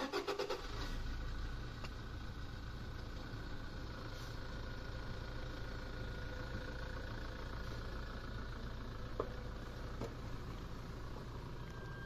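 A car engine starting with a short rattle, then idling with a steady low hum.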